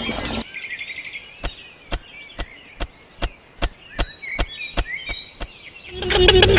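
Steady, evenly spaced tapping knocks, about two and a half a second, like a tool striking, with faint bird chirps behind; a loud music-like tone comes in near the end.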